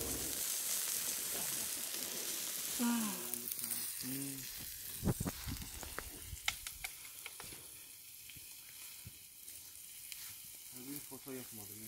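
Meat patties (köfte) sizzling on a charcoal grill, a steady hiss that fades gradually, with a few sharp clicks about five to seven seconds in.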